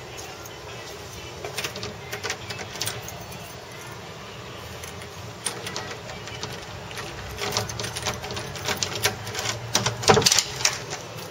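Metal knob of a wooden door being turned and rattled: scattered clicks that come faster in the second half, with the loudest clatter near the end.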